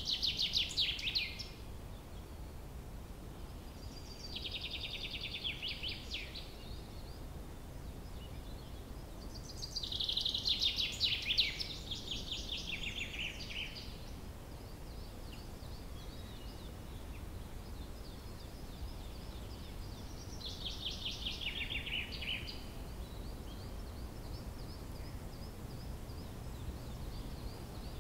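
Outdoor ambience with a songbird singing four short trilled phrases, each about two to three seconds long and several seconds apart, over steady low background noise. Fainter birdsong carries on through the second half.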